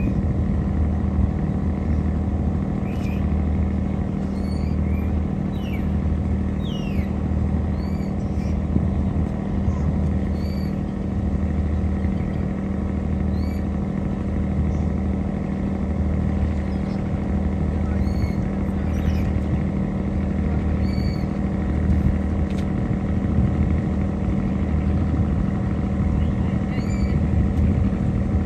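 Boat engine running steadily, a low drone with a throb that pulses about once a second.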